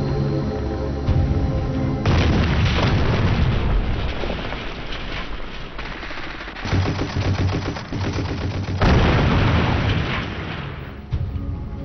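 Battle sound of rapid machine-gun fire with booms, over background music. The gunfire starts about two seconds in, surges again near the end, then gives way to the music.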